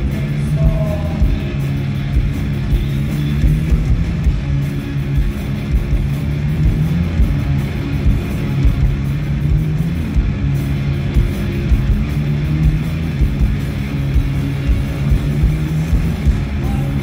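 Live rock band playing an instrumental stretch: electric guitar and keyboard over a steady beat, with no singing.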